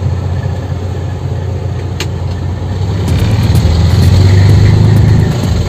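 Truck's diesel engine heard from inside the cab, running with a steady low rumble that grows louder about three seconds in as the truck moves off. A single sharp click about two seconds in.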